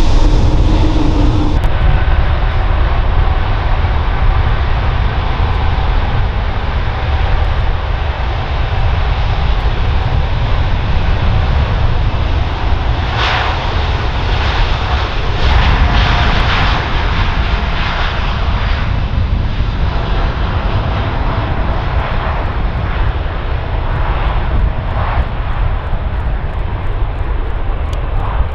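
Jet engines of a Boeing 787-9 Dreamliner rolling along the runway: a loud, steady jet rumble with a deep low end that swells a little a few times.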